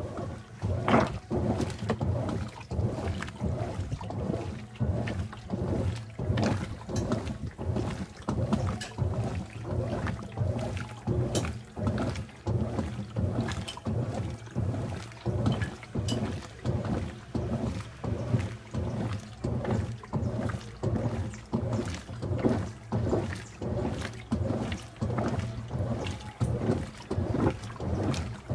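Washing machine agitating a wash load: water and clothes sloshing in regular surges, about one a second.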